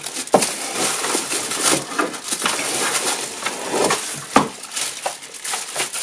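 Clear plastic packaging bag crinkling and rustling as it is handled and lifted out of a cardboard box, with a couple of sharper knocks, one just after the start and one about four seconds in.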